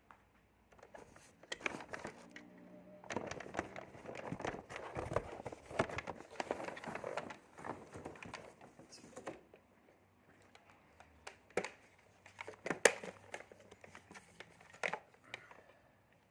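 Packaging crinkling and rustling as the parts of a new stick vacuum cleaner are unwrapped. Near the end come a few sharp clicks and knocks as the parts are handled.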